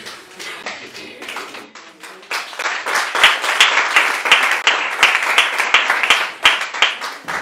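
Several people clapping in applause, growing louder about two seconds in and stopping abruptly near the end.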